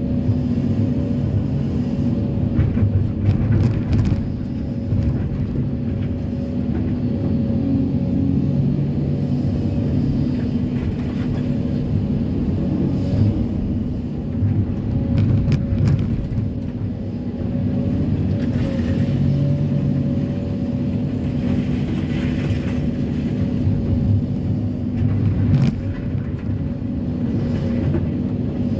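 Kobelco SK330-10 tracked excavator's diesel engine running steadily under hydraulic load while the steel bucket digs into broken rock, with a few scattered knocks and scrapes of bucket on stone.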